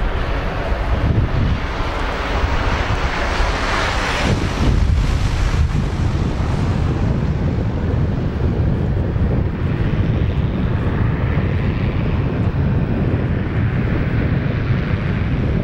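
Single-engine floatplane's propeller engine droning as it passes low overhead, loudest about three to five seconds in, then easing to a low rumble as it comes in on its landing approach. Wind rumbles on the microphone.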